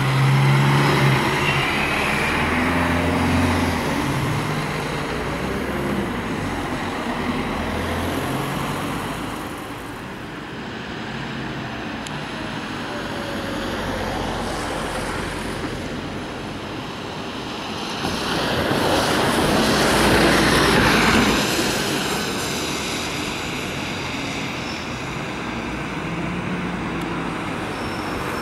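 Heavy vehicles passing in the street. A big engine pulls away at the start, its pitch stepping up through the gears. About two-thirds through, a louder pass-by swells and fades.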